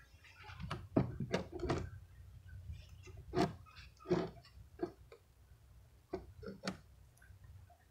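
Scattered light knocks and taps of wooden beehive parts being handled and set in place as the hive is closed up, about ten in all, the loudest a little after three seconds in.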